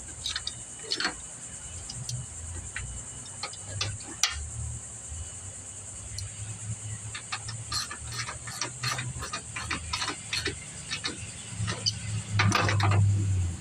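Scattered clicks and clinks of hand tools as the screws on a riding mower's steering panel are tightened down, with a quicker run of clicks in the middle, over a steady high chirring of crickets. A louder low rumble of handling noise comes near the end.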